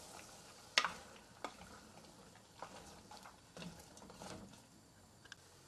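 A spoon stirring a pot of cracked wheat, meat and onions, with a few light clicks and knocks of the spoon against the pot, the sharpest about a second in and a soft cluster near the end.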